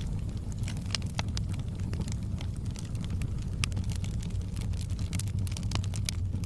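Wood fire crackling in a fireplace: irregular sharp pops and snaps scattered throughout over a steady low rumble.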